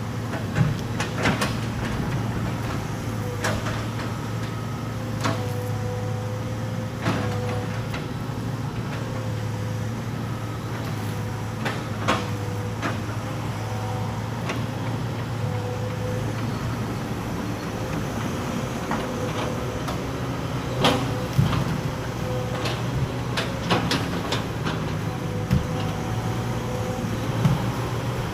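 Excavator's diesel engine running steadily under load, with a wavering hydraulic whine, and scattered sharp knocks and clanks as it works the logs.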